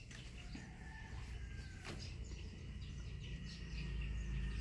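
Faint bird calls over a low steady rumble, with a single sharp click about two seconds in.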